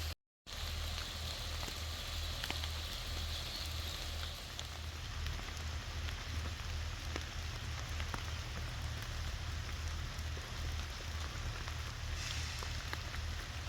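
Steady rain falling, an even hiss with scattered faint drop ticks over a low rumble. The sound cuts out for a moment just after the start.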